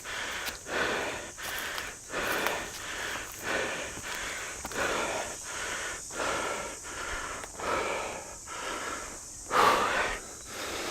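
Heavy, rapid breathing of a hiker out of breath from a steep uphill climb: regular in-and-out panting with no pause, and one louder exhale near the end.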